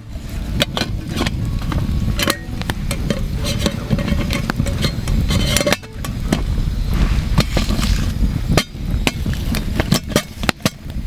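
Wood campfire crackling and popping over a low rumble, with the clink and scrape of a metal lid being set onto a cooking pot beside the fire.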